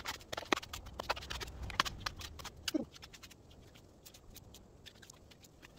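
Coconut husk being pried off on a husking stake: a rapid run of sharp cracks and snaps as the fibres tear, dense for the first three seconds and thinning out after.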